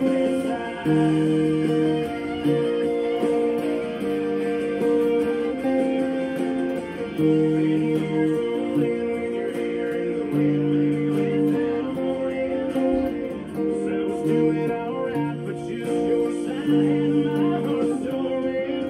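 Epiphone Les Paul-style electric guitar playing chords that change about once a second, along with a country song recording that has a singer and drums.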